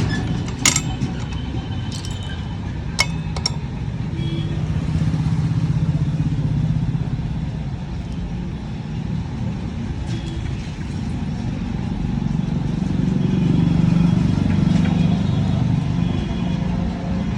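A few sharp metal clinks and knocks of tools working the motorcycle's stubborn brake-disc bolts in the first few seconds, over a steady low drone of motor vehicles that swells twice.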